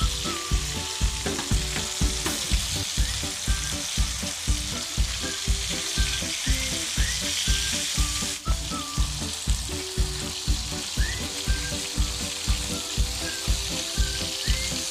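Chicken pieces frying in hot oil in a pan, a steady sizzle throughout, over background music with a steady beat.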